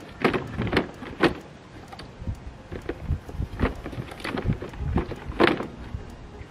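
Irregular knocks and clacks of a Bosch Rotak 34R electric lawn mower's plastic body and handle being handled, with its motor not running.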